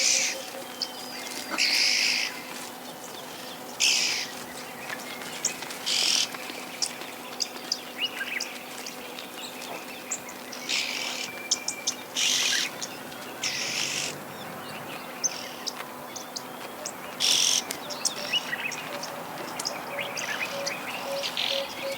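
Red-billed oxpeckers giving harsh, hissing calls, each about half a second long, repeated irregularly every one to few seconds. Faint thin chirps and clicks sound between the calls.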